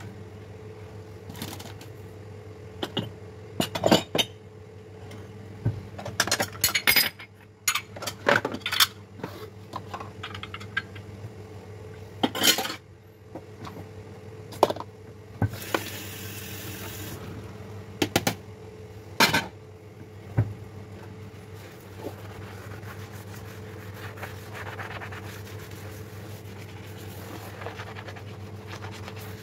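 Ceramic and plastic dishes clinking and knocking as they are washed and stacked in a dish rack at a sink. There are many separate sharp clinks over the first twenty seconds and a short hiss about sixteen seconds in, over a low steady hum.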